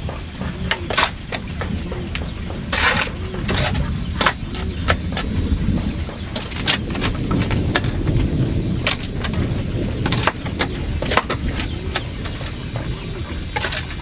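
Shovel digging in stony soil: the steel blade stabs and scrapes into earth and stones in sharp strokes at uneven intervals, with short rushes of scooped dirt being thrown.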